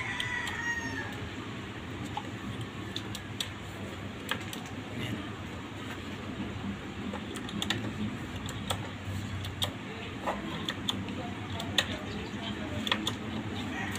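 Irregular clicks of the plastic push-button switches on a Hyundai Starex overhead dome-light console, pressed over and over to test that both lamps light together. Steady low background noise runs under the clicks.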